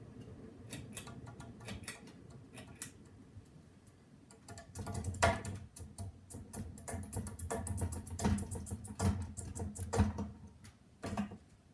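Ceiling fan running with a low, steady hum, under many sharp, irregular clicks and taps. The clicking grows dense and loud from about a third of the way in and stops shortly before the end.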